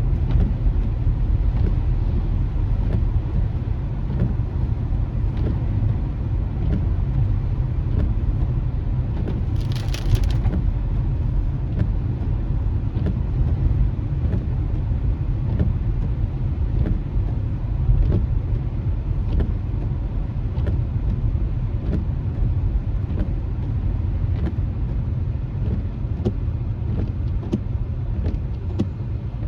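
Road noise inside a moving car in the rain: a steady low rumble of tyres and engine, with scattered light ticks and a brief hiss about ten seconds in.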